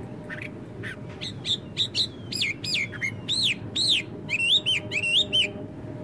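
Blackbird singing a phrase of arching whistled notes that rise and fall, ending in a quicker run of squeaky twittering notes, over a low steady background rumble.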